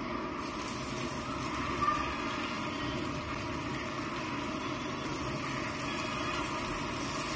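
Breaded vegetable cutlets sizzling steadily as they deep-fry in hot oil in a kadai.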